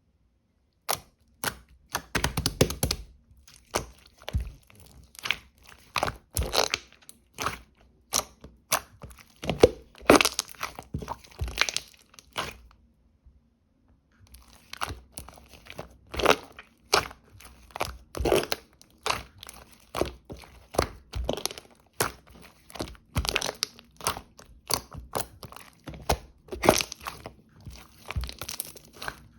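Hands squishing, pressing and stretching a milk-like slime, making irregular sticky clicks and pops, some in quick runs, with a pause of about two seconds roughly halfway through.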